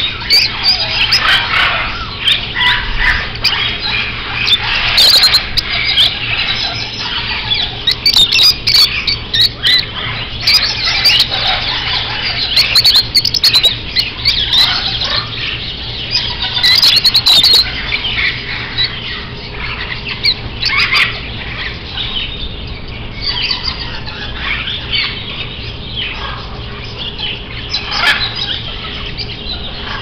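Many caged lovebirds and other small birds calling at once: a constant shrill chatter of chirps and squawks, with louder clusters of calls every few seconds.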